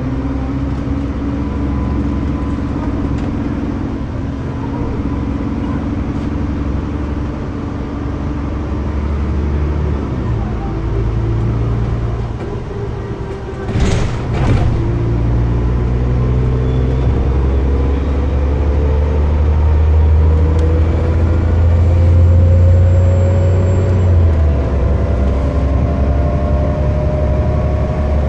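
ADL ALX400 Trident double-decker bus with a Voith automatic gearbox, heard from inside the saloon while driving: a steady engine drone with a brief clunk about halfway through. In the second half a tone rises slowly as the bus picks up speed.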